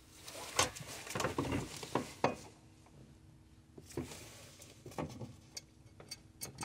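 Light metal clinks and taps of an M6 bolt and washers being handled and fitted into a hole in the throttle pedal bracket. Most fall in the first two and a half seconds, with a few more around four and five seconds in.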